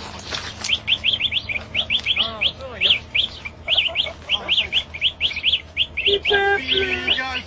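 Many small birds chirping in quick, overlapping high calls, several a second. A lower, steadier call or voice joins briefly near the end.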